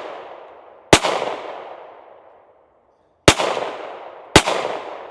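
Three 9mm shots from a Glock 48 pistol, fired slowly and unevenly: one about a second in, then two about a second apart near the end. Each sharp report trails off in an echo lasting over a second.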